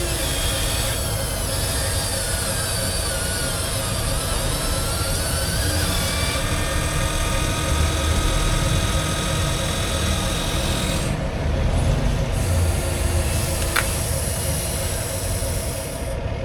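Small electric motors and gearboxes of radio-controlled construction vehicles whining steadily, their pitch sliding up and down as they speed up and slow down.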